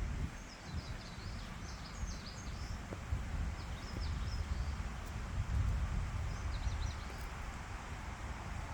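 Wind blowing, with a steady low rumble of wind on the microphone and a rushing hiss, while small birds chirp in quick high bursts twice, once early and once near the end.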